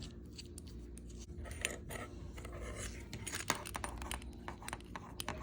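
Small, irregular metal clicks, taps and scrapes of a multi-tool pen being handled, with one sharper click about three and a half seconds in.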